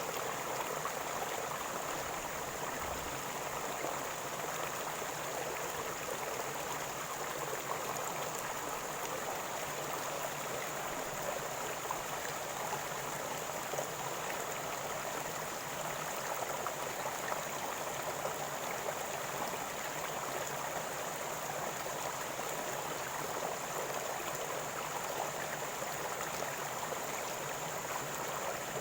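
River water gurgling and rushing in a steady, unbroken flow.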